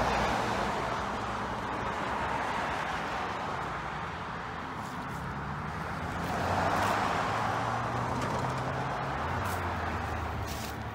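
Road traffic: cars driving past, the noise swelling as one passes at the start and again about six and a half seconds in, over a low steady engine hum.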